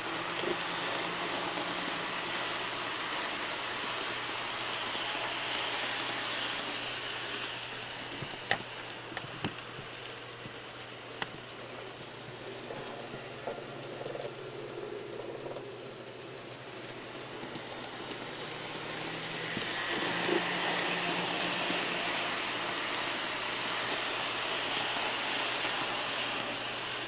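Kato N scale Santa Fe Super Chief passenger train running on its track: a steady hiss and rattle of small wheels and motor that swells as it passes close, fades in the middle, and swells again about two-thirds of the way in. A few light clicks sound about a third of the way in.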